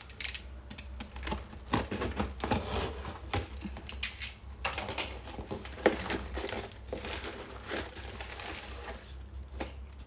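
A parcel's packaging being opened by hand: crinkling and rustling with many irregular small clicks and knocks, one sharp knock about six seconds in.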